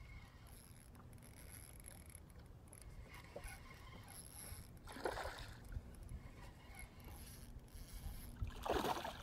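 Spinning reel being cranked, its gears turning with a faint mechanical whir, with two short louder bursts of noise about five seconds in and near the end.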